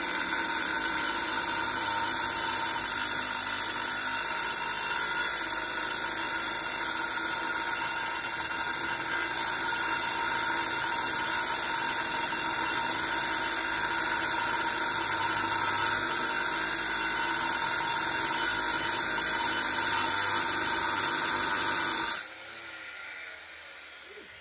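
Angle grinder with a cutting disc biting steadily into a small compressor's metal casing, a loud high-pitched whine with sparks thrown. About 22 seconds in it is switched off and the disc winds down with a falling whine.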